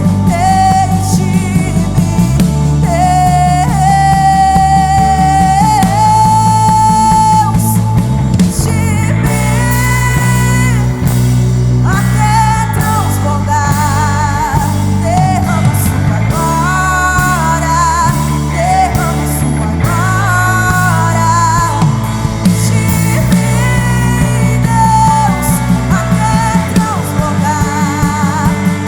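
Live worship band playing, with a woman singing the lead in Portuguese: long held notes with vibrato over steady bass and chords.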